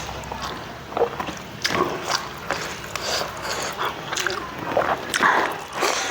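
Chewing and mouth smacks of someone eating rice, with irregular short wet clicks throughout.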